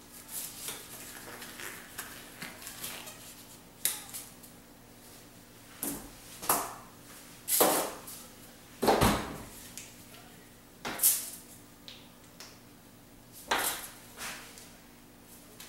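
Irregular clacks, taps and rustles of hair-dye supplies being handled with gloved hands: plastic bottles and caps, a plastic mixing bowl and crinkling aluminium foil. The sharpest knocks come in the second half.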